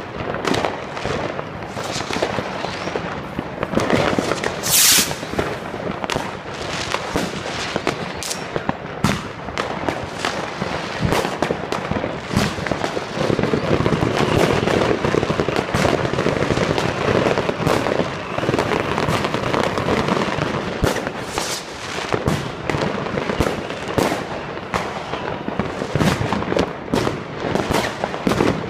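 Many fireworks going off at once: rockets and firecrackers banging and crackling in rapid, overlapping cracks without pause, with one short hiss about five seconds in.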